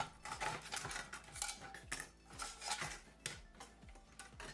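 Irregular clinks and clicks of a disassembled media player's metal and plastic parts being handled.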